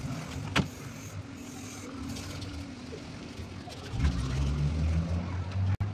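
Low steady mechanical hum with a sharp click about half a second in. About four seconds in, a louder, low motor-vehicle engine rumble comes in and stops abruptly near the end.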